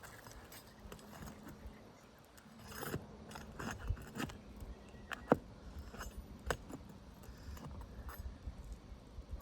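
Scattered sharp clicks, snaps and light scraping from asphalt roofing shingles being handled and their tabs lifted, with a faint metallic jingle. There are about five louder snaps between about three and seven seconds in.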